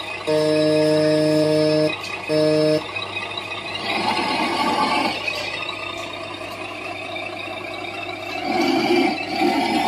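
Remote-control Hino 500 dump truck (Huina 1582): two blasts of an electronic horn, a long one and then a short one, in the first three seconds, followed by a rough, wavering running noise as the truck drives.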